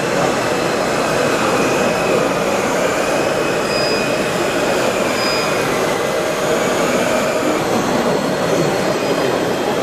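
Steady, dense din of a busy exhibition hall, an even rumble with no pauses.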